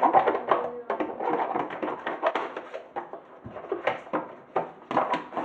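Irregular knocks and rattles of a dishwasher being handled and wiped out during cleaning.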